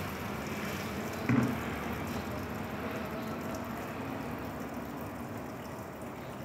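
Steady outdoor background noise with no clear tone, and a short low knock about a second in.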